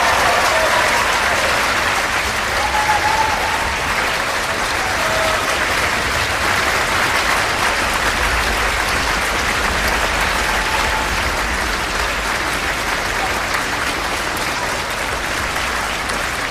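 Concert-hall audience applauding steadily.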